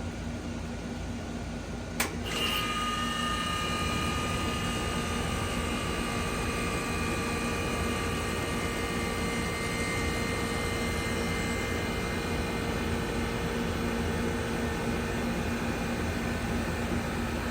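1999 Trane XE1000 heat pump outdoor unit starting in cooling mode: a sharp contactor click about two seconds in, then the compressor and condenser fan come on and run steadily with a hum and a higher whine.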